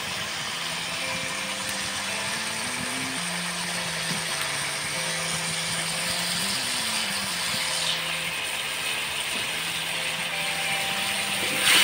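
Spiced onion-and-chili curry base with a little water bubbling and sizzling hard in a wok: a steady crackling hiss.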